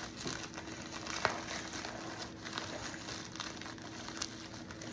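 Plastic poly mailer crinkling and rustling as it is pulled and torn open by hand, with irregular small crackles and a couple of sharper snaps.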